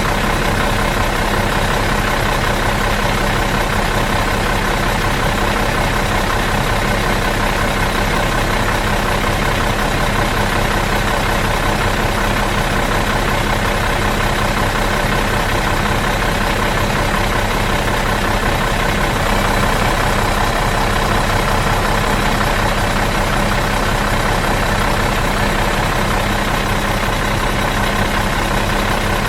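Bus engine idling out of gear, a steady, even drone with a low rumble.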